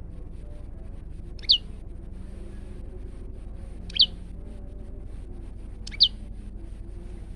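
Male prenjak lumut giving three short, sharp calls about two seconds apart, each a quick downward-sweeping whistle.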